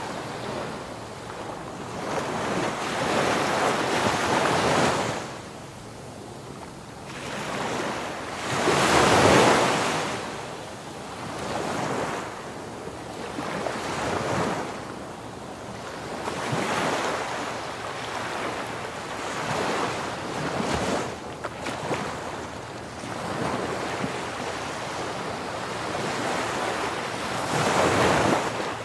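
Surf: waves washing in and drawing back, a rushing noise that swells and fades every few seconds, with the biggest swell about nine seconds in.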